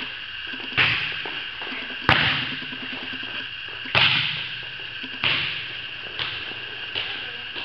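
Volleyball being played back and forth: about six sharp slaps of hand and forearm on the ball, one every second or two, the loudest near two and four seconds in, each echoing in the large metal-roofed gym. A steady hum sits underneath.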